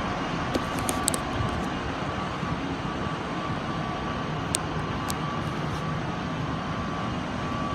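Diesel multiple units idling at the platform: a steady engine drone with a low hum and a faint steady whine, with a few light clicks.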